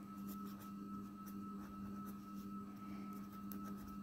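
Pen scratching faintly on notebook paper in short strokes while writing Urdu calligraphy, in two clusters near the start and about three seconds in, over a steady low hum.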